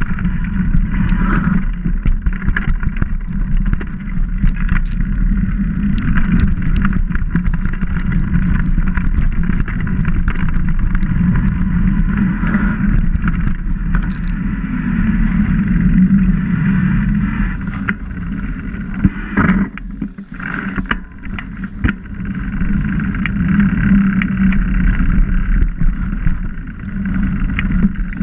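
Mountain bike rolling along a trail: steady wind rush on the microphone over tyre noise, with frequent clicks and knocks from the bike rattling over rough ground. It quietens briefly about two-thirds of the way through.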